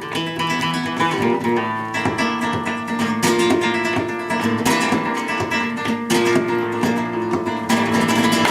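Acoustic guitar played flamenco-style: plucked melodic phrases broken by several sharp strummed chords.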